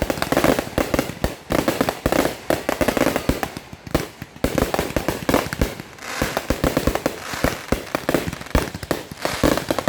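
Fireworks finale: a dense, rapid run of bangs and crackling reports, with a short lull about four seconds in before the explosions pick up again.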